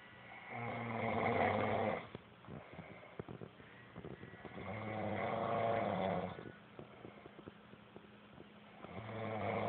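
A man snoring: three long, pitched snores about four seconds apart, the third starting near the end.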